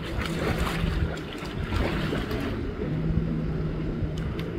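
A motorboat engine running with a steady low hum, over wind and surf noise.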